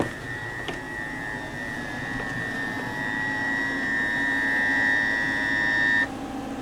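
Emergency Alert System two-tone attention signal played through a TV's poor speakers: a steady, harsh dual-tone alarm that grows slightly louder and cuts off suddenly about six seconds in.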